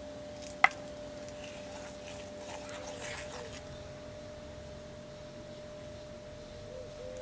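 Wooden spoon mixing a thick, wet spice paste in a stone mortar, soft squelching scrapes, with one sharp knock about half a second in. Coconut milk is poured into the paste near the end.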